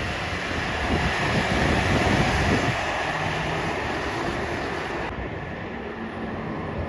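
Heavy fire truck driving past, a steady rumble of engine and road noise that swells about two seconds in and eases after about five seconds, with wind on the microphone.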